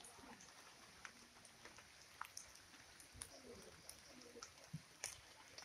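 Near silence: faint outdoor background with a few scattered soft clicks.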